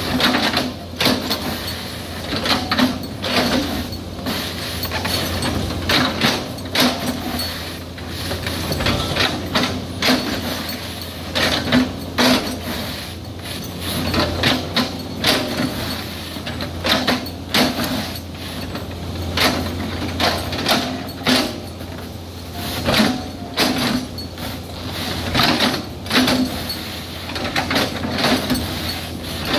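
Hydraulic excavator's diesel engine running steadily while its bucket chops a felled oil palm trunk, with irregular clanks and crunches about every second as the bucket edge bites into the trunk.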